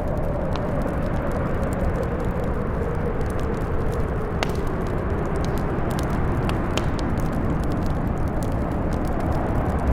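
Blizzard wind howling, with a whistling tone that slowly sinks in pitch over a steady low rush, while a wood fire crackles with scattered sharp pops.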